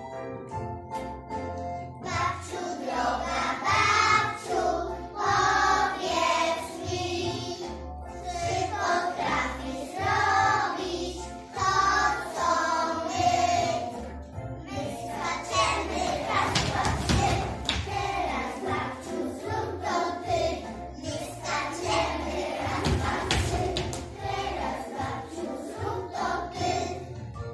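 A group of young children singing a Polish song together over an instrumental accompaniment with a steady bass line; the singing starts about two seconds in.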